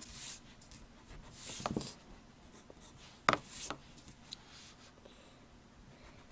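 Pencil scratching on drawing paper in several short, separate strokes, with one sharper, louder stroke a little past halfway.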